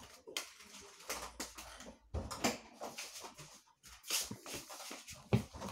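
Rustling and a string of short sharp clicks from small objects being handled, with a louder click about halfway through.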